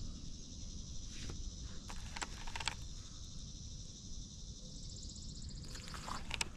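Insects trilling in a high, fast-pulsing chorus that swells and fades, over a low rumble. A few sharp clicks come through, the last ones near the end as the baitcasting reel is handled.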